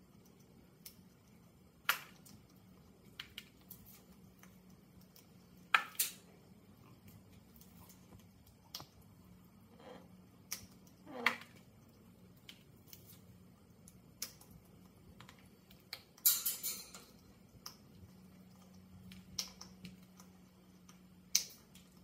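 Amazon parrot cracking dried corn kernels off the cob with its beak: scattered sharp crunches and clicks, with a busy cluster of crunching about sixteen seconds in.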